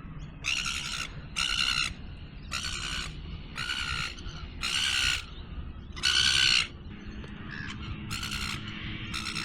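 A crow cawing repeatedly: about eight harsh calls, each about half a second long and roughly a second apart, over a faint steady low hum.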